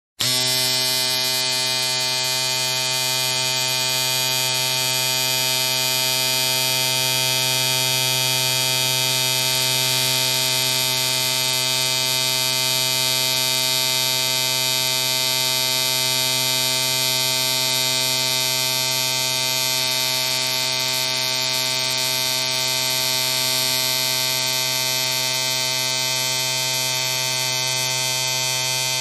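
Electric hair clipper running steadily: an even, unbroken buzz with no change in pitch or strength.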